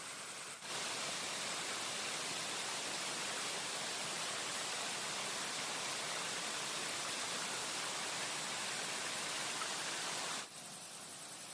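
Steady rushing noise, cutting in sharply about half a second in and cutting off sharply about a second before the end.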